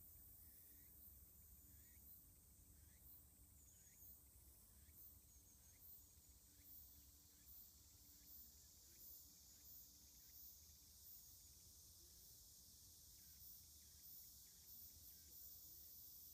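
Near silence with faint outdoor ambience: small insect chirps repeating about once a second over a low steady hum.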